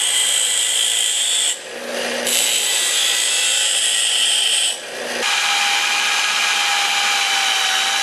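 6-inch bench grinder grinding the edge of a steel bracket, in two stretches with a short break between. About five seconds in it gives way to an electric drill boring through a small steel bracket, its motor whine steady.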